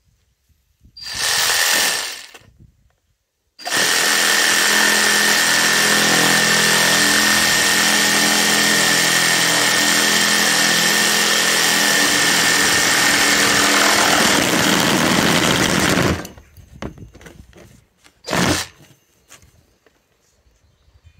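Cordless reciprocating saw running with its blade against a black pipe. A short burst comes first, then a long steady run of about twelve seconds, then a few knocks and one more short burst near the end.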